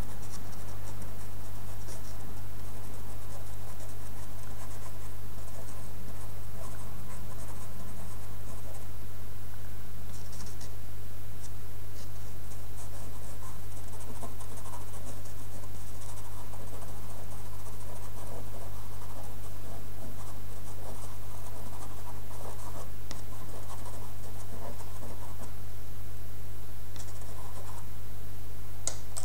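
A pencil scratching on paper in irregular drawing and shading strokes, over a steady low hum.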